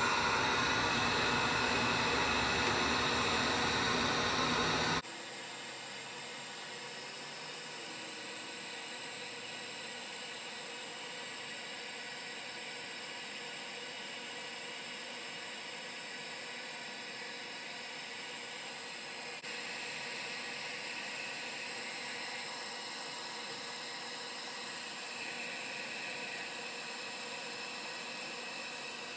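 Electric heat gun blowing a steady hiss of hot air. The sound drops abruptly to a much lower level about five seconds in, then runs on evenly.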